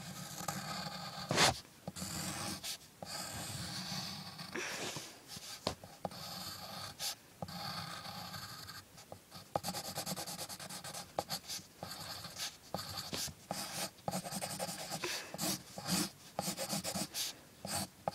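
Pencil scratching on paper in drawing strokes, getting quicker and more back-and-forth in the second half. One sharp knock about a second and a half in.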